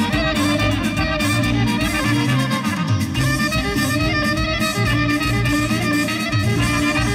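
Live Greek folk dance music: a clarinet plays the melody over accompanying instruments and a repeating bass line.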